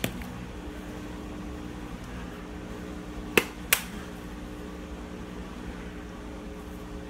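Steady hum of a clothes dryer running in the background. A little past halfway come two sharp taps in quick succession: a container of onion powder being knocked because the powder will not pour.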